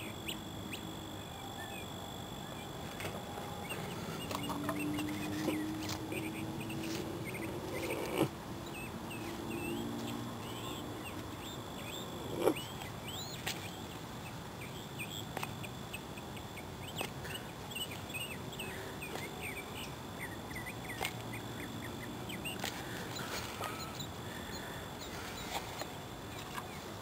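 Outdoor ambience with many small birds chirping and a few lower, drawn-out calls, broken by two sharp knocks, about a third of the way in and near the middle.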